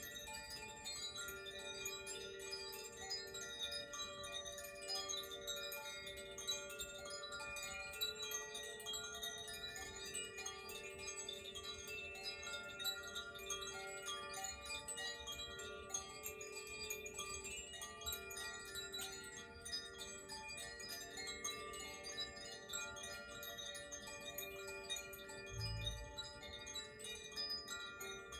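Koshi and Zaphir tuned wind chimes being played, many steady tones ringing and overlapping with frequent light tinkling strikes. A brief low thump sounds near the end.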